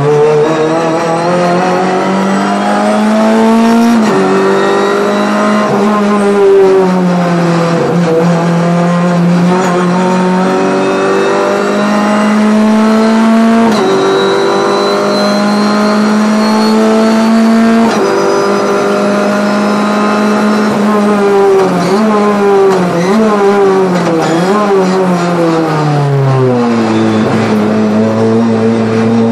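Renault Clio 3 Cup's 2.0-litre four-cylinder engine heard from inside the cabin, revving up through the gears with sharp drops in pitch at each upshift. Over the last third come several quick downshifts with throttle blips, then it pulls up again.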